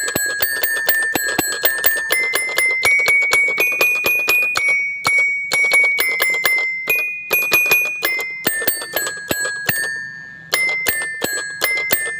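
Background music of quick, bell-like struck notes over held bright tones, briefly thinning out about ten seconds in before picking up again.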